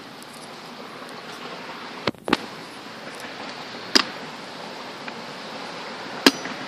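A metal ammo can being handled, giving four sharp clicks and knocks, two close together about two seconds in, one about four seconds in and the loudest near the end, over a steady hiss.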